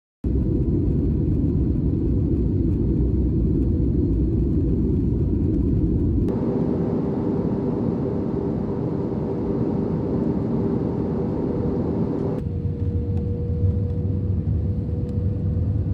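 Steady low rumble of engine and air noise inside an airliner cabin, with a faint steady hum; the sound changes abruptly twice, about 6 and 12 seconds in.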